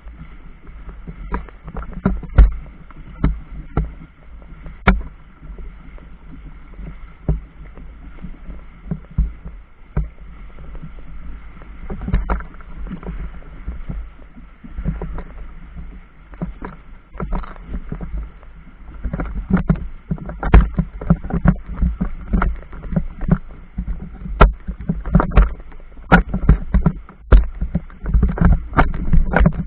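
Choppy river water slapping and lapping, with irregular sharp knocks over a low rumble. The slaps come thicker and louder in the last ten seconds or so.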